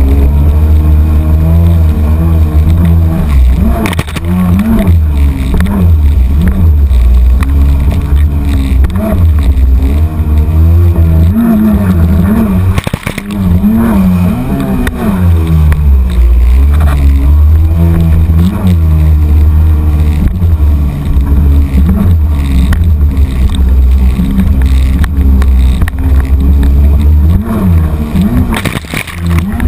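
Kawasaki Jet Ski personal watercraft running at speed, its engine rising and falling in pitch again and again as the throttle works through turns, with a heavy low rumble of wind and rushing water over it.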